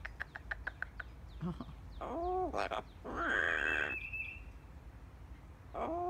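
Yellow-naped Amazon parrot vocalizing: a quick run of clicks, then croaky calls that rise and fall in pitch, and a louder, harsh squawk about three seconds in, with another rise-and-fall call near the end.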